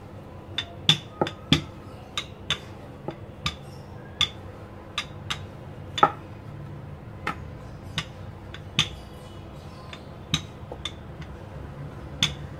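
Wooden rolling pin rolling back and forth over a bread slice on a wooden board, giving irregular sharp clicks and knocks, about one or two a second, as the pin and its handles strike and rattle against the board.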